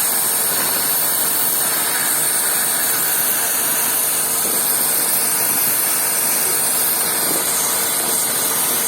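Henry canister vacuum cleaner running steadily: an even rush of air with a faint steady hum, with no change through the stretch.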